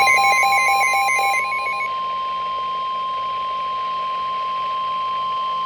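Emergency Alert System attention signal for a severe thunderstorm warning: one steady, loud, high-pitched alert tone. For about the first one and a half seconds a warbling, stepping electronic pattern sounds over it.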